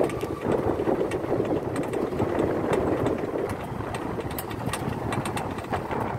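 Electric tourist cart driving along a concrete causeway: steady running and road noise, with frequent small clicks and rattles.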